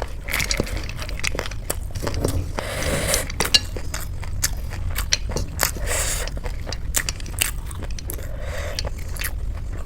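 Close-miked eating: crunchy bites and chewing of crisp street snacks such as puffed-rice jhal muri and puri, a run of sharp crackly crunches.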